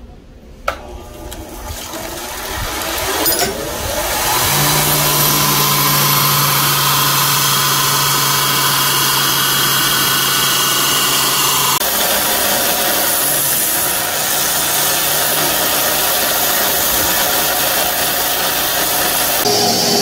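Belt grinder running up to speed, then its abrasive belt grinding the edge of a steel knife blank with a loud, steady hiss over the motor's hum. The tone shifts about twelve seconds in and again near the end.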